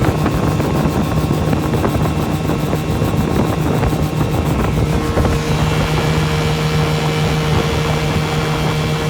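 A 15-horsepower two-stroke outboard motor running steadily at high speed, pushing the boat along, with rushing wind and water noise. Its hum holds one pitch and becomes steadier and stronger about five seconds in.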